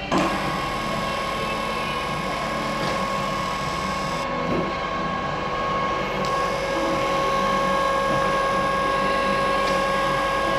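Donau DR 32 radial drilling machine running: a sharp knock at the start, then a steady gear whine with a mechanical rattle.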